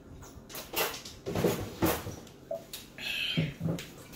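A few short knocks and mouth sounds from people drinking out of glass bottles and setting them down on a wooden table, with two low thuds near the end.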